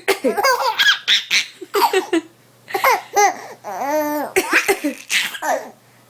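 Baby laughing hard in a quick run of high-pitched laughs with short breaths between them, stopping shortly before the end.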